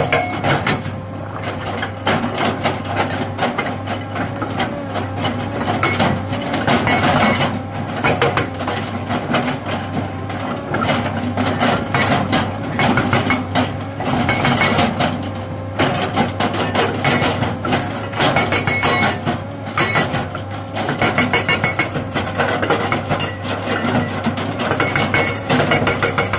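Hydraulic rock breaker on an excavator hammering its chisel into rock in a fast, continuous run of blows, pausing briefly a few times, over the excavator's engine running steadily underneath.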